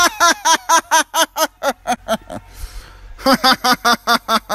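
A man laughing in a rapid, high-pitched cackle: two runs of quick, evenly spaced 'ha-ha' syllables, with a short break in the middle.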